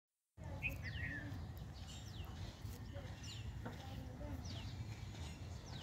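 A bird repeating a short, high whistle that slides downward, about once a second, over a steady low rumble.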